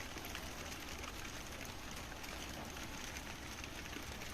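Rain falling steadily: an even hiss with a faint fine patter.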